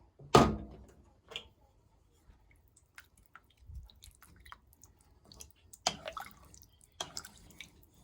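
Kitchen cooking sounds: a sharp knock about half a second in, then scattered small clicks and wet taps, with a few louder knocks near the end.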